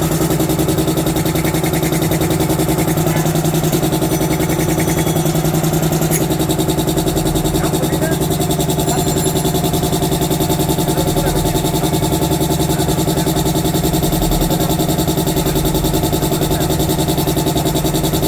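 Air compressor running steadily with an even hum.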